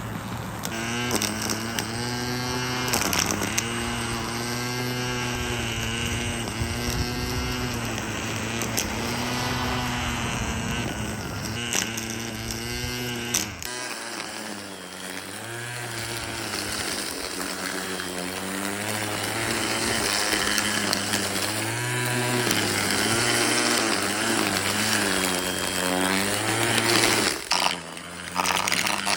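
Ryobi 18-volt battery string trimmer on a wheeled mower deck running while it cuts grass, its motor pitch dipping and recovering every second or so as it takes on load. The tone changes abruptly about halfway through.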